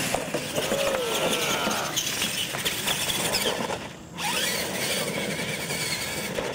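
Radio-controlled monster trucks' electric motors and gearboxes whining, the pitch gliding up and down as the throttle changes, over a steady rushing noise. The sound drops briefly about four seconds in.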